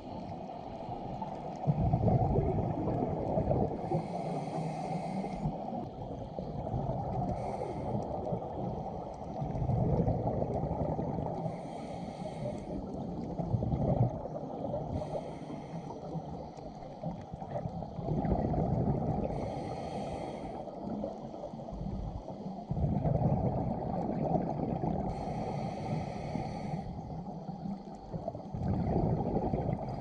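Scuba diver breathing through a regulator underwater: a hiss on each inhale and a low rush of bubbles on each exhale, repeating every few seconds.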